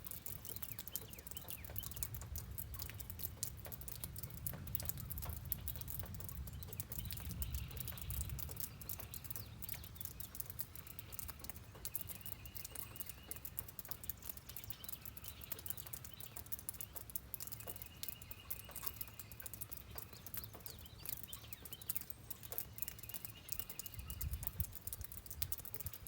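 Steady rain pattering over a low rumble, with a bird giving a short high trill four times.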